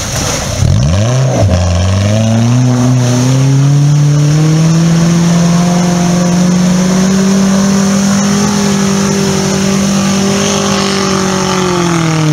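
Small 4x4 off-roader's engine revved hard as it pushes through a deep mud-and-water pit: the revs jump up sharply about half a second in, are held high and steady, and drop back near the end, with mud and water churned up by the wheels.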